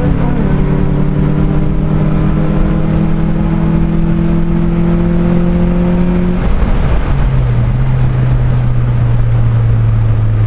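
Car engine under acceleration, its pitch climbing steadily, then dropping sharply about six and a half seconds in and easing slowly lower, over a steady rush of road noise.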